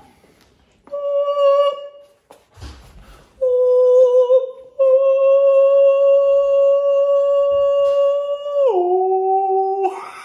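A man singing long, steady, high held notes in a falsetto: two short ones, then one held for about four seconds that drops to a lower note near the end.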